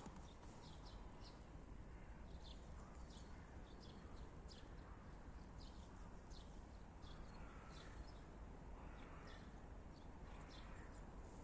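Faint, high chirps of small birds, repeating about once or twice a second, over a low steady background rumble.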